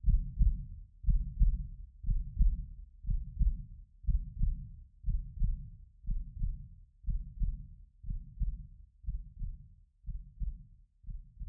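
Heartbeat sound effect: slow, steady low double thumps, about one beat a second, gradually getting quieter.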